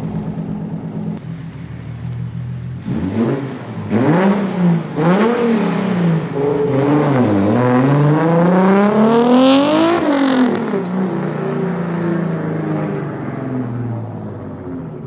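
Toyota Supra's straight-six engine through its exhaust, idling steadily, then revved twice in quick blips. It then pulls hard with the pitch climbing steadily, breaks off sharply about ten seconds in, and falls away.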